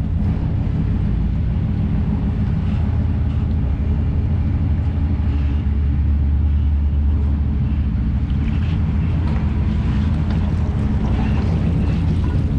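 Ford F350's 460 big-block V8 pulling a loaded boat trailer slowly up the ramp: a steady low engine drone under load, louder for a moment about halfway through.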